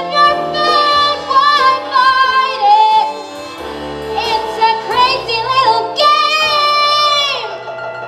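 A child sings a musical-theatre song with instrumental accompaniment. Near the end the singer holds one long note for about a second and a half, which slides down as it ends.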